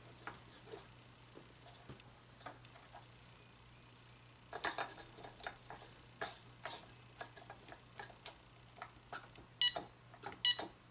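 Plastic clicks from a General Electric 900 MHz cordless phone handset being handled and its keypad buttons pressed, a few sharp clicks from about halfway, then short electronic keypress beeps near the end. This is a test of whether the freshly cleaned button contacts now register.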